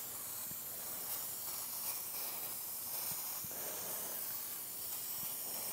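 Aerosol spray can spraying paint in a steady hiss.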